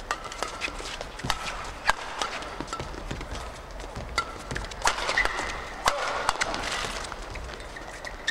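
Badminton rackets striking a shuttlecock in a fast doubles rally, sharp hits at an uneven pace, with short shoe squeaks on the court and arena crowd noise underneath.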